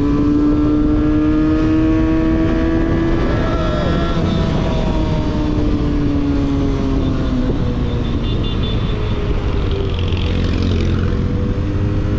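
Benelli 302S parallel-twin engine and exhaust heard from on board. It holds a steady note, then eases off with the pitch falling from about four seconds in, and runs on at lower revs.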